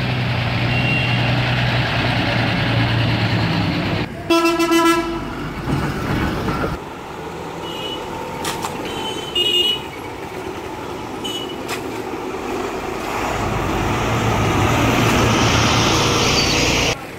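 Diesel bus engines running as buses move off. A loud bus horn sounds once for under a second about four seconds in. Near the end an engine grows steadily louder as a bus pulls away.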